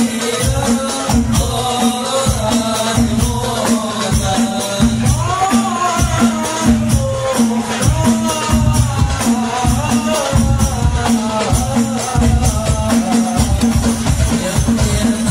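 A group of men singing a song into microphones, accompanied by hand-held frame drums (rebana) beaten in a steady rhythm.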